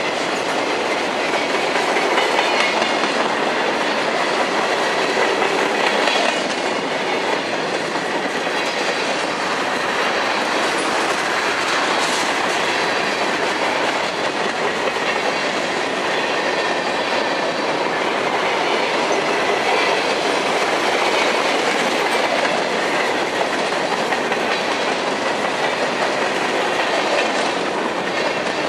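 Train cars rolling past, with steady wheel-on-rail noise that keeps up without a break.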